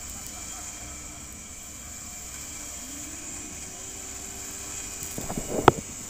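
The stuck off-road vehicle's motor runs with a low hum; about three seconds in, a whine rises in pitch and then holds steady. Near the end come a few knocks and one sharp, loud click.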